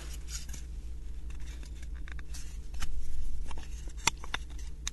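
Thin wooden 3D puzzle pieces being handled and slotted together: light clicks and taps of wood on wood, a louder scrape about three seconds in, and a sharp click about four seconds in.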